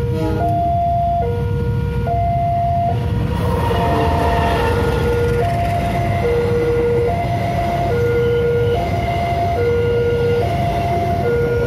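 Railway level-crossing warning alarm sounding a steady two-tone high-low signal, each tone just under a second, warning of a train at the crossing. A passenger train passes, its rumble and wheel noise on the rails growing from about three and a half seconds in.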